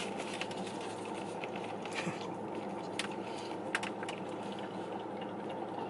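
Bulldog licking whipped cream from a paper cup: scattered short wet licking clicks over a steady background hum.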